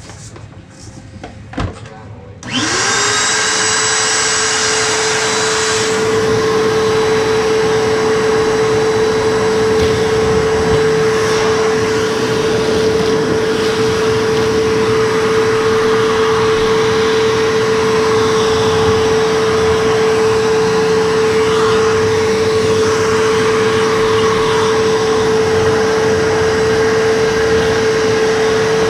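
Vacuum cleaner switched on after a sharp click, its motor spinning up within a second to a steady whine over a rushing hiss and running on, sucking up the work debris.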